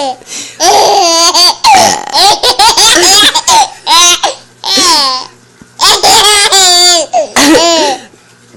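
Young child laughing hard in a string of high-pitched giggling bursts, with short pauses between them.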